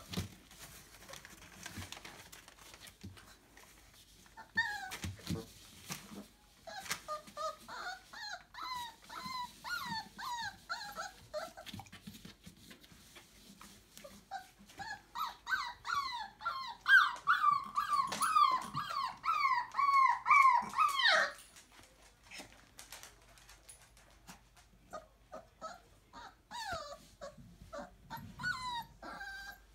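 27-day-old Entlebucher puppies whimpering and squealing in bouts of quick, high-pitched cries, several a second. The longest and loudest bout, just past the middle, stops abruptly.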